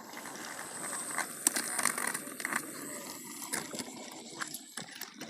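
Toy train engines and track pieces making small irregular plastic clicks and rattles, over a faint steady hum from a battery-powered motor.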